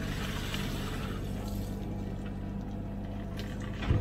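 Komatsu PC16 mini excavator's diesel engine running steadily while the bucket scoops wet mud out of a trench flooded by a leaking water pipe, with squelching and splashing in the first couple of seconds. There is a single knock near the end.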